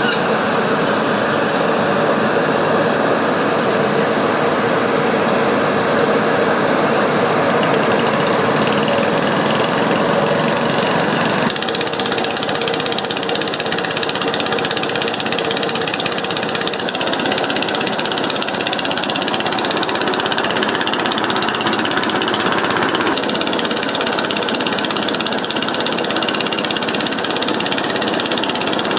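Steady jet aircraft engine noise, a dense even roar. It changes in character twice, about 11 and 23 seconds in.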